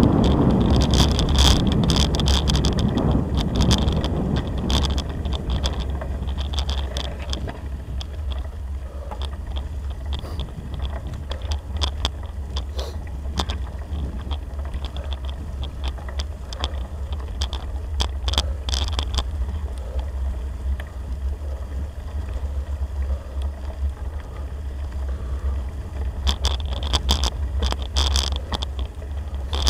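Bicycle rolling over a gravel track, heard from a camera mounted on the bike: a steady low rumble with frequent rattling clicks from the bumpy surface. Wind on the microphone in the first few seconds, fading out.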